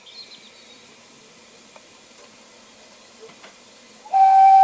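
Narrow-gauge steam locomotive Russell, a Hunslet 2-6-2 tank engine, standing with a faint hiss of steam, then sounding its steam whistle about four seconds in: one loud, steady single-note blast.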